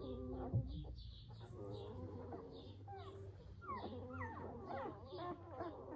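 Young puppies whimpering, a run of short, faint high cries that slide down in pitch.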